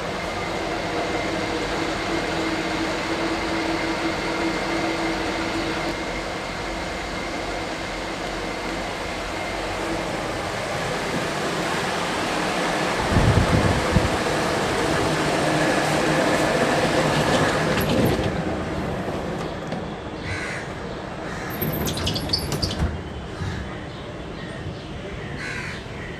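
A steady mechanical hum with background traffic noise, with a low thump about halfway through. In the second half, crows caw several times in short calls.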